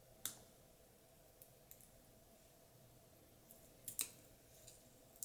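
A few sharp clicks and taps from small hard items being handled, the clearest about a quarter second in and about four seconds in, over a faint steady hum.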